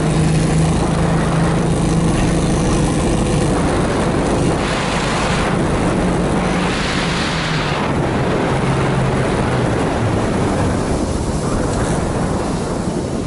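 Small open-frame snowmobile running under way across snow: a steady engine drone with wind and track noise over it. The engine note eases off near the end as the machine slows.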